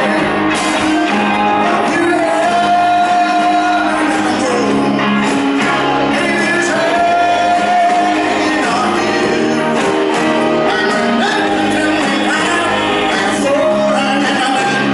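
Live band playing a song, with a male lead singer belting over electric guitar and drums; he holds some long notes.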